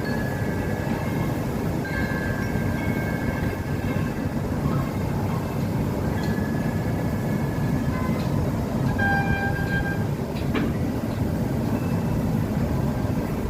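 Metal wind chimes ringing: clear tones sound one after another, each holding for a second or two before fading, over a steady low rumble.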